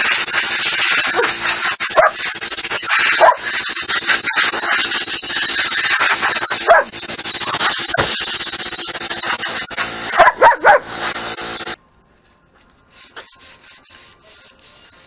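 Compressed air hissing hard from a long-nozzle air blow gun, blowing dust and grit off a go-kart's steel front frame before primer. Several short squeals cut through the hiss. It stops abruptly about three quarters of the way in, leaving only a few light clicks.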